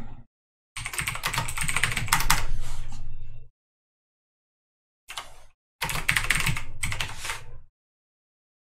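Typing on a computer keyboard in two runs of quick keystrokes, the first about a second in and the second starting about five seconds in, with silence between.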